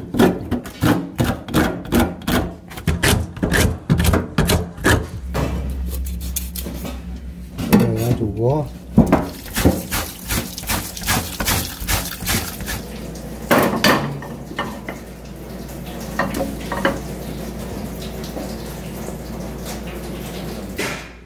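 A knife cutting and scraping through a raw whole chicken in a stainless-steel sink, a quick run of clicks and scrapes. From about five seconds in, tap water runs steadily into the sink while the chicken is rinsed by hand.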